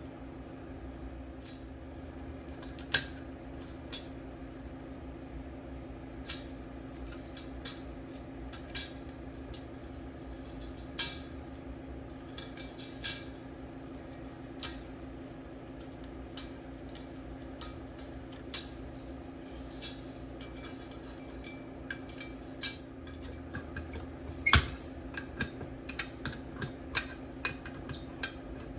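Small metal parts and hand tools clinking and clanking on a workbench as an old toaster is handled, with scattered sharp knocks that come thicker near the end, over a steady low hum.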